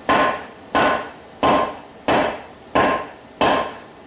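Heavy wooden mallet striking a red-hot steel chain hook on an anvil in six even blows about two-thirds of a second apart, each with a short ring from the anvil. The blows are bending the distorted sling hook back into shape.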